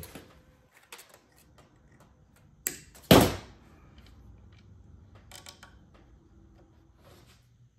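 Pliers and steel guitar-string wire being handled on a stainless steel table while a wire soap-loaf cutter is strung: a sharp click about two and a half seconds in, then a loud short metallic clatter that fades quickly, with small clicks and taps around the tuning keys after.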